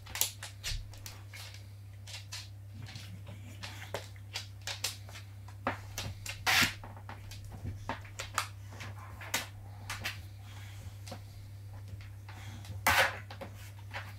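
Irregular knocks, scuffs and rustles of a Boxer and a Staffordshire bull terrier tugging a rope toy in a plastic dog bed, with two louder scraping bursts about six and a half and thirteen seconds in.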